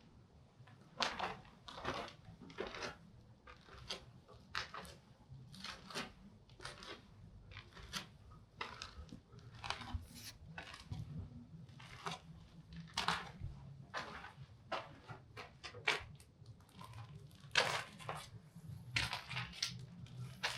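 Footsteps crunching on debris across a ruined floor, at a walking pace of about one to two steps a second.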